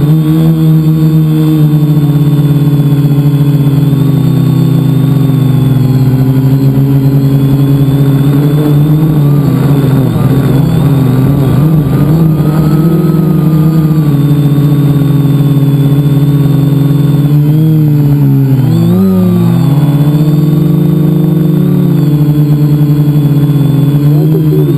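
Multicopter's electric motors and propellers humming loud and close, heard from a camera mounted on the craft itself. The pitch wavers with throttle, and about three-quarters of the way through it dips sharply and climbs back.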